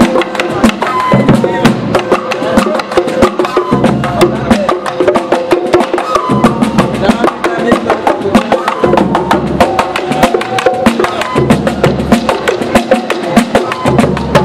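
Street percussion band playing a driving rhythm: a large rope-tensioned bass drum struck with sticks, bongos and stick-played drums, with many sharp stick clicks. A wind instrument holds long notes over the drums.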